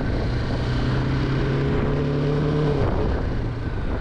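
Motorcycle engine running while riding, over a steady rush of wind noise. The engine note climbs slightly in pitch, then falls away about three seconds in.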